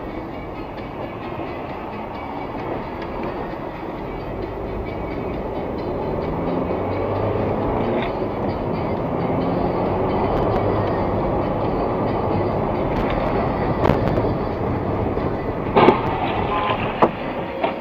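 A train running by with a steady rumble that builds over the first several seconds, followed by a few short, sharp bangs in the last four seconds.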